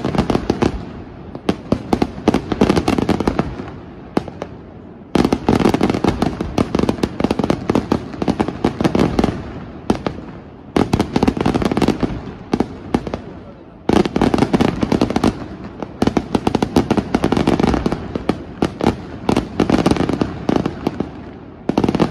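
Senatore Fireworks display firing: dense rapid bangs and crackling in waves, each starting suddenly and thinning out over a few seconds.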